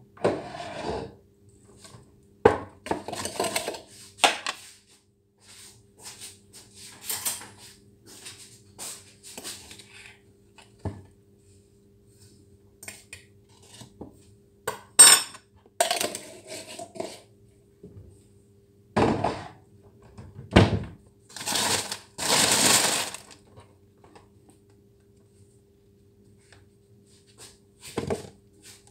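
Kitchen handling sounds: dishes, a glass jar and a metal spoon clinking and knocking on the counter at irregular intervals, with a few sharper knocks and some longer scraping stretches, over a faint steady hum.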